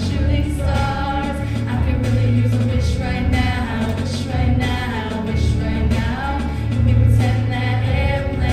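Choir singing a pop song over accompaniment with a bass line that shifts note about every second.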